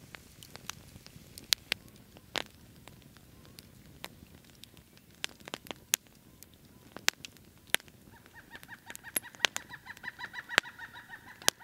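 Campfire crackling, with sharp snaps and pops scattered irregularly. In the last few seconds a high, rapidly pulsing call joins in over the fire.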